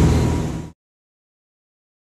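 Sport-fishing boat's engines droning while running at speed, with rushing wake and wind noise. It fades out quickly less than a second in, then silence.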